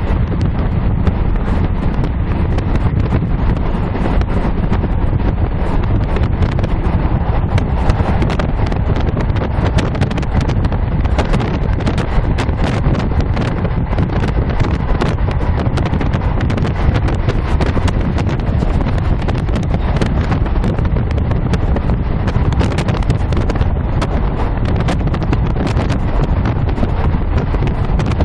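Diesel passenger train running along the line, heard from inside the carriage: a steady low rumble with frequent irregular clicks and rattles from the wheels on the track.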